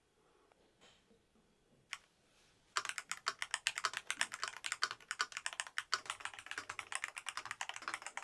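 Typing on a MelGeek MADE68 Ultra gaming keyboard: a single key click about two seconds in, then fast, continuous key presses starting about three seconds in.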